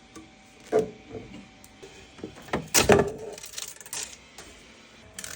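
Hard plastic parts clicking and clattering as they are handled, with a couple of louder knocks about three-quarters of a second in and near the three-second mark, over a faint steady hum.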